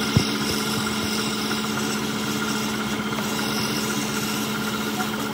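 Metal lathe running steadily with a tool cutting the end of a gunmetal bush: a steady machine hum under the scrape of the cut. One sharp click just after the start.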